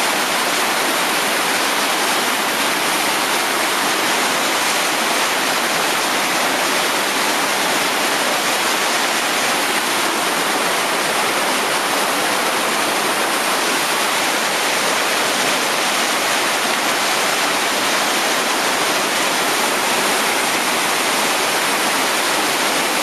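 Whitewater rapid rushing steadily: a dense, even wash of churning water with no breaks.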